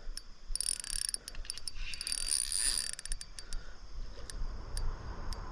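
Spinning reel clicking and whirring as a hooked fish is fought on light 4-pound line, a quick run of ticks with bursts of high whir.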